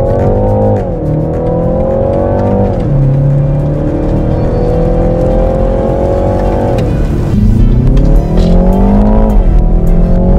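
BMW 330i's 2.0-litre turbocharged four-cylinder engine accelerating hard through the gears, its note climbing and then dropping at each of four upshifts.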